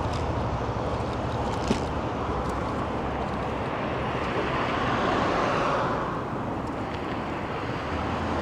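City road traffic heard while riding an electric scooter, a steady noise with a low hum. A vehicle passes about halfway through, swelling and fading, and there is a single sharp click near the start.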